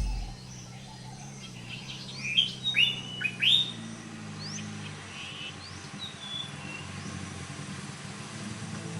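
Birds chirping: a quick cluster of short chirps that rise and fall in pitch about two to three and a half seconds in, then a few fainter calls, over a low steady hum.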